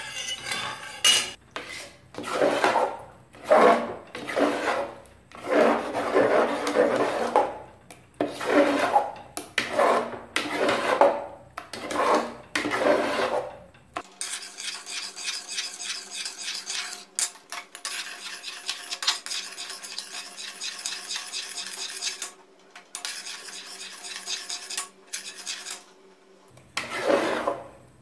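A metal ladle scraping around an aluminium kadai in strokes about once a second as milk is stirred while it reduces. About halfway through this changes to a ladle stirring thick mung dal halwa paste in a pressure cooker pan: finer, continuous scraping over a faint steady hum.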